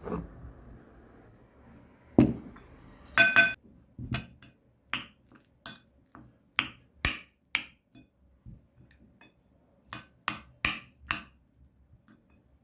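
Cutlery clinking against a plate while eating: a string of short, sharp clinks, a few of them ringing briefly, starting about two seconds in.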